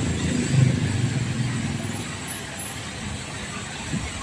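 Street traffic: engines of jeepneys and cars rumbling as they creep past, louder in the first second or two and then easing off.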